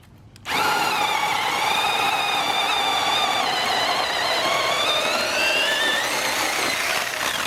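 Corded electric chainsaw lopper running and cutting through a piece of wood. Its motor whine sags in pitch under load, then climbs again as the cut finishes, and stops near the end.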